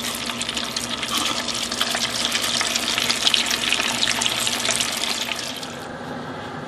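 Crab cakes sizzling and crackling in hot deep-fryer oil, a dense spitting hiss that eases off near the end.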